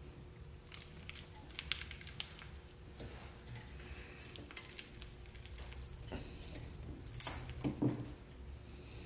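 Aluminium lid of an electric UFO burger press being lowered and clamped down onto a filled bun, giving scattered clicks and light metal clanks from the lid and its locking handle. The loudest is a sharp click about seven seconds in, followed by a few low knocks.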